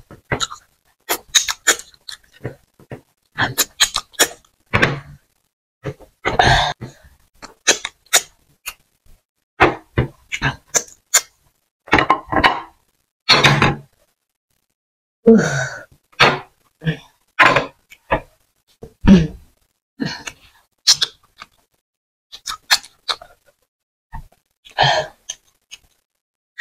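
Close-miked mouth sounds of someone eating amala and black soup with fish by hand: wet smacking, chewing and sucking, in irregular short smacks and clicks with brief gaps between them.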